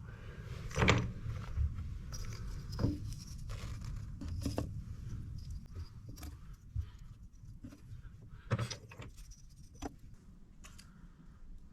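Scattered clinks, rattles and knocks of objects being handled, over a low rumble. Sharper knocks come about a second in, near three seconds in, and twice near the end.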